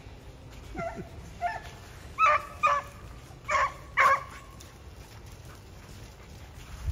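Beagles barking: six short barks over about three seconds, the last four loudest.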